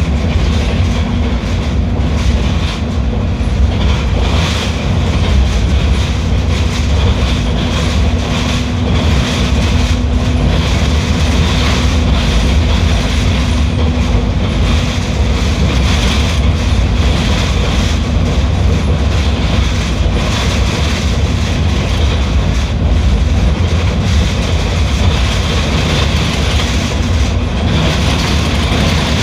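Mercedes-Benz OF 1721L BlueTec 6 bus under way: a steady low engine rumble mixed with road and body rattle noise. A steady hum in the engine note fades out about halfway through.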